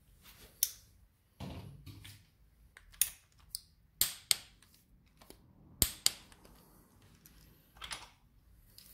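Sharp, irregular metallic clicks and clinks of a small socket tool being fitted to and worked on the pinch bolt of a motorcycle's aluminium gear-change lever, with a brief handling rustle about a second and a half in.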